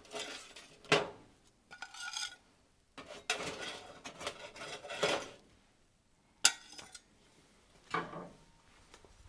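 Kitchen utensils and dishware clinking and scraping in separate bursts as baked pizza pockets are lifted off a baking pan onto a plate, with a sharp clank about six and a half seconds in.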